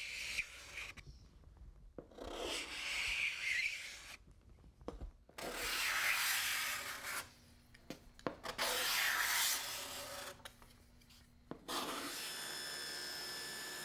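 Handheld steel card scraper drawn along the grain of a figured mahogany panel in about four long rasping strokes, each a second or two long, taking off mill marks. A steady hum takes over near the end.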